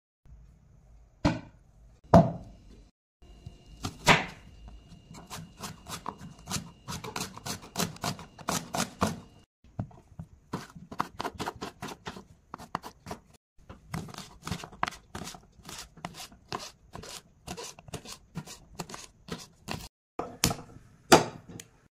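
Quick, sharp tapping and knocking of a hard object on a wooden cutting board, in stretches of several taps a second, with a few louder single knocks.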